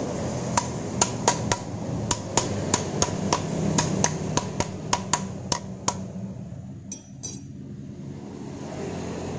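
A thin metal hand tool tapping on the Honda Grand's engine parts at the magneto side: a run of sharp, ringing metallic taps, about three a second, that stops about six seconds in.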